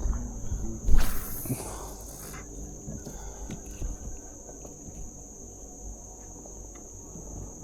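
Steady high-pitched drone of insects in the surrounding countryside, with a brief loud hissing rush about a second in that lasts about a second and a half.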